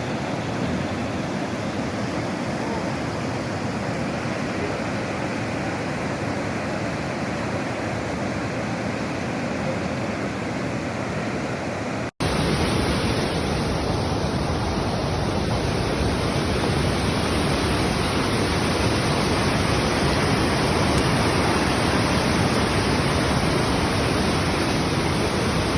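Steady rush of a river in flood, a continuous even roar of fast-moving water. It breaks off for an instant about twelve seconds in and resumes somewhat louder and deeper.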